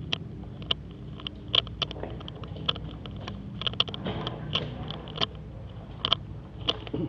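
Irregular sharp clicks and taps, a few a second and uneven in loudness, over a steady low hum.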